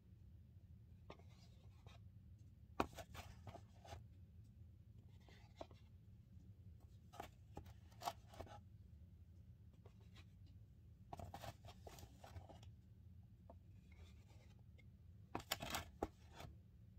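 Plastic spatula scraping and scooping cornstarch powder in a plastic bowl and packing it into the cardboard box, in short scratchy strokes every second or two, with one sharp tap about three seconds in.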